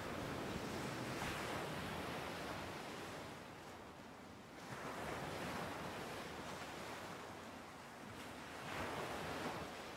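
Sea waves and wind: an even wash of noise that swells about halfway through and again near the end.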